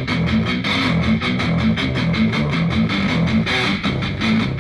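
Guitar-driven instrumental music with a steady beat, played from a phone through an Archeer A210 portable Bluetooth speaker.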